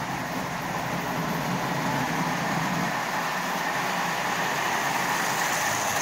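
Marx 400 toy locomotive's single-reduction motor whirring as it runs on tinplate three-rail track pulling a string of cars, the wheels rumbling on the rails. The sound grows a little louder over the first couple of seconds and then holds steady.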